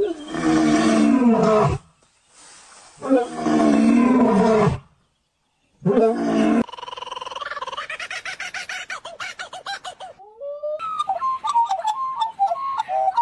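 A run of different animal calls. First come two long, deep roars that fall in pitch, then a short one. After that comes a rapid pulsing call of about six pulses a second, then warbling whistled notes with clicks.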